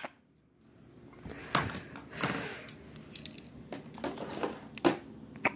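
Handling noise: rustling and a few sharp clicks and knocks as a phone is moved around close to the microphone.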